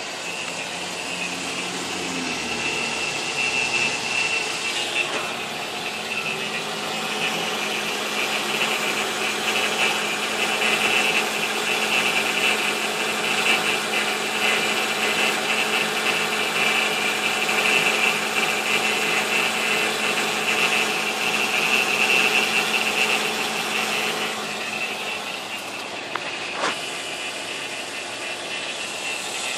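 2005 Nissan Altima 3.5 SE's 3.5-litre V6 running with a steady high-pitched whine over the engine sound, a new noise the owner cannot explain. A single sharp click comes near the end.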